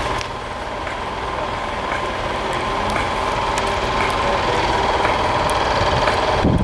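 An engine idling steadily, a low rumble with a steady hum on top, slowly getting a little louder.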